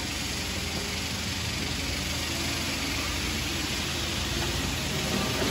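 Steady low machine hum that grows louder near the end.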